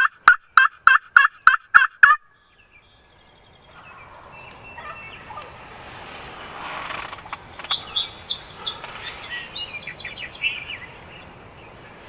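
A fast series of turkey yelps, about four a second, that stops abruptly about two seconds in. After a short quiet, small birds chirp and sing faintly.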